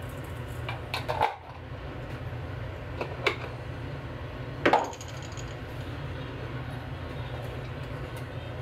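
Deep iron frying pan of oil heating on a gas burner: a steady low hum with a few sharp metallic ticks and pops, in small clusters about a second, three seconds and nearly five seconds in, the last the loudest.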